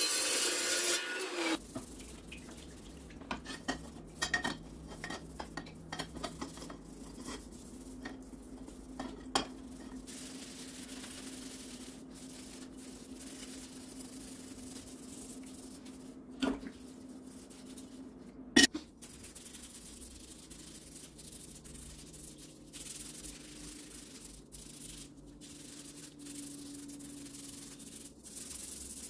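Hand work on scrap metal parts: a rasping, filing-like noise that stops about a second and a half in, then scraping, light metallic clinks and a few sharp knocks, the loudest about two-thirds of the way through, over a faint steady low hum.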